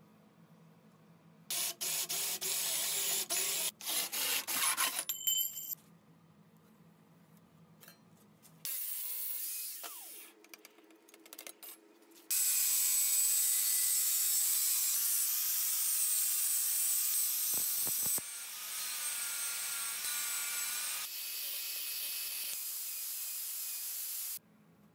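Angle grinder cutting thin stainless steel sheet. It starts with a few seconds of choppy, on-and-off cutting, then after a pause cuts steadily for about twelve seconds and stops abruptly near the end.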